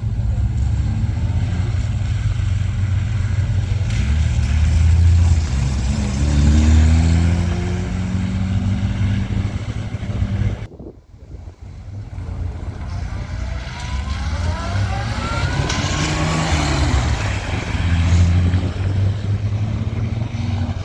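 Historic cars' engines running, with a steady low rumble and cars accelerating away, the engine pitch rising as each pulls off. The sound drops out briefly about halfway through, then another car accelerates with a climbing engine note.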